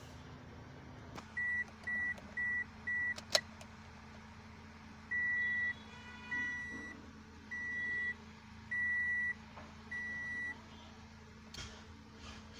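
Dashboard warning chime of a 2007 Toyota Corolla beeping with the ignition on: four short beeps, a sharp click, then five longer beeps a little over a second apart.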